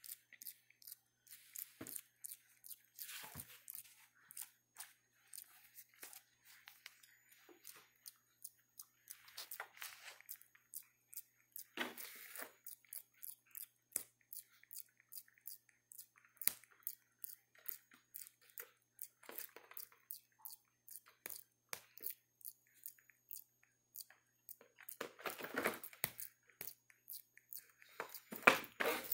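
Macaque monkeys tearing and biting at a cardboard box, a quick run of short crackles and crunches of cardboard and paper. There are louder ripping bursts midway and near the end.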